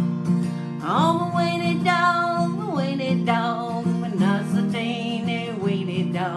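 A woman singing a country song to her own acoustic guitar strumming, with long held notes that waver in pitch and slide up and down between them.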